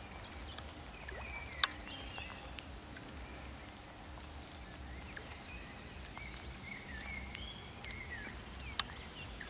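Faint lakeside ambience: small birds chirp now and then over a low steady rumble. Two sharp clicks stand out, one about a second and a half in and one near the end.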